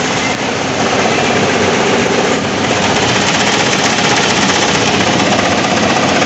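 Smart car with the air conditioning switched on, making a loud, steady, strange mechanical noise from the front over the running engine. The owner suspects a broken electric radiator fan rather than the A/C compressor.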